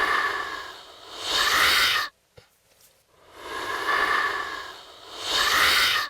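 Homemade monster sound effect: a person's breathy hiss, distorted into a wheezing rasp, heard twice. Each take swells, dips a little, then rises to a louder rasp that cuts off suddenly, about 2 s in and again near the end.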